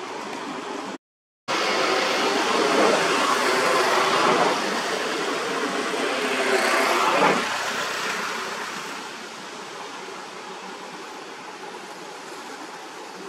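A road vehicle passing: a noisy rush that swells, with a falling pitch, is loudest about seven seconds in, then fades to a steady background hiss. The sound drops out for half a second about a second in.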